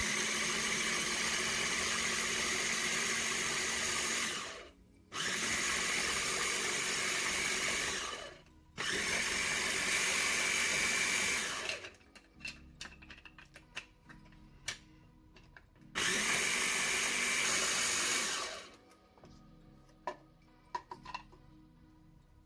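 Kenwood food processor motor puréeing strawberries with lemon juice, run in four bursts of three to four seconds, each stopping and winding down. A longer pause of about four seconds before the last burst holds light clicks and knocks.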